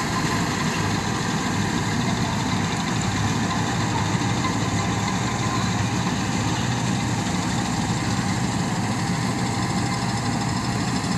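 Tractor engine running steadily while driving a straw reaper that chops field straw and blows it through a chute into a trailer, a constant mechanical din with a steady low engine hum.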